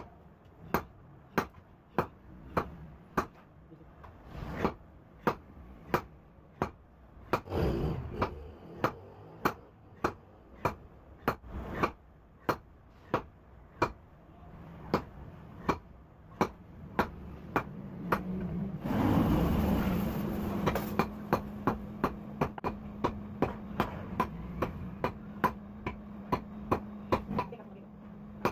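Hand hammer striking a red-hot steel axle bar on a steel anvil block, a sharp ringing blow about every 0.6 s, quickening in the last third. Just past two-thirds through there is a burst of noise, and a steady low hum runs under the blows after it.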